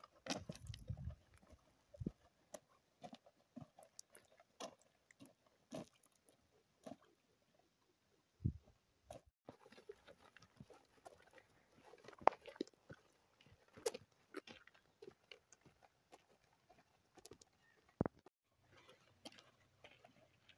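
Faint, irregular crunching footsteps on a stony dirt path.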